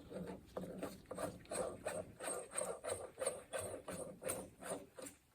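Ratchet wrench clicking in quick, even strokes, about two to three a second, as a nut is run down the threads of the transmission's fifth-gear shaft; the clicking stops about five seconds in.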